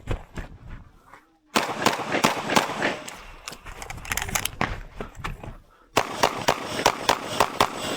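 Pistol shots from a CZ Shadow 2 fired in rapid strings during an IPSC stage run, about three to four shots a second, with short pauses between strings.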